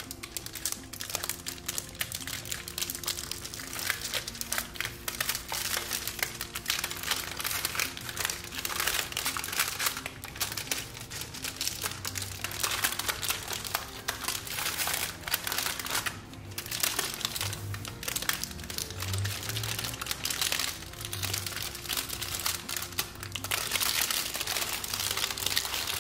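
Aluminium foil crinkling and crumpling as hands wrap it around a date-and-nut roll and press it tight, in dense irregular crackles that let up briefly partway through.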